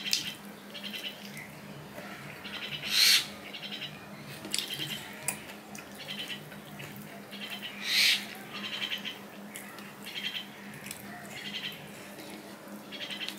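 Close-miked eating sounds of food eaten by hand: wet chewing and lip-smacking in quick clusters, with two louder wet smacks about three and eight seconds in.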